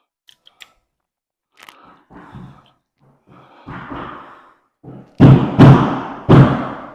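Heavy thuds and knocks from timber flooring being laid on the floor above. Softer knocks come in the first seconds, then three loud blows in quick succession near the end.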